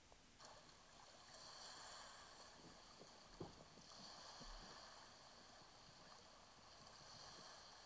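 Near silence: a faint steady hiss with a few soft clicks.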